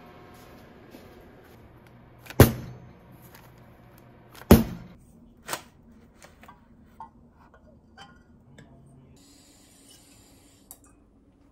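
Two sharp knocks of a metal baking tray and round cake tin on the kitchen counter, about two seconds apart, followed by a few lighter clinks as the tin is set down on a glass. Near the end a kitchen tap runs briefly into a glass.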